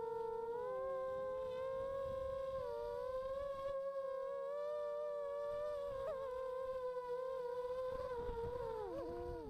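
Brushless motors and propellers of a 285 mm carbon-frame FPV quadcopter whining, heard from its onboard camera. Several close pitches drift apart and back together as the motors change speed, then fall near the end as it comes down to land.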